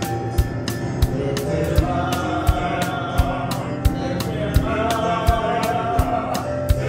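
Gospel hymn: voices singing long held notes over a steady drum beat, about three beats every two seconds.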